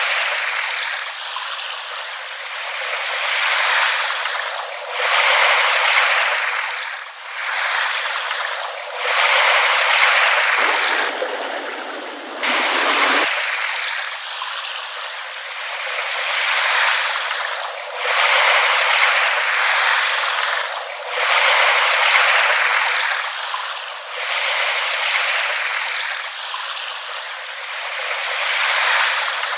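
Small waves lapping and washing on a shore, a continuous hiss that swells and falls back every few seconds. The sound is thin, with no low rumble.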